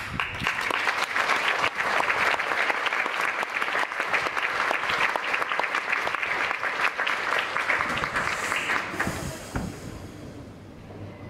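Audience applauding at the end of an accordion-accompanied dance, the clapping fading out near the end.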